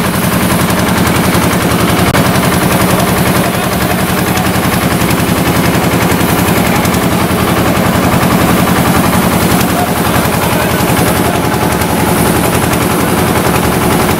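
Small engine-driven power sprayer pump running steadily with a fast, even rattle while it pushes disinfectant through the hose to the spray gun.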